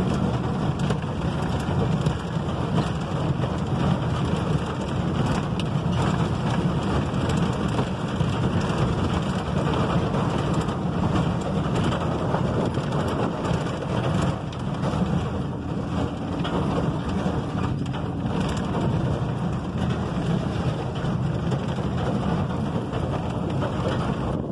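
Steady in-cab road noise from a vehicle driving a dirt road: the engine running under the rumble of tyres rolling over gravel.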